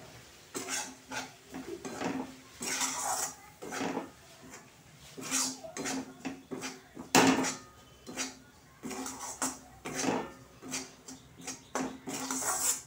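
Metal spatula scraping and stirring around a kadai in repeated irregular strokes, the loudest about seven seconds in, as a dry dhoka (lentil) mix is fried in a little oil.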